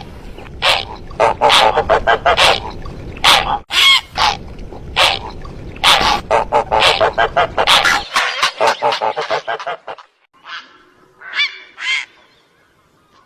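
Hunting call recording of heron and zarki birds: a rapid run of short, harsh, honking calls over a low hiss for about eight seconds, then the hiss stops and a few scattered calls follow.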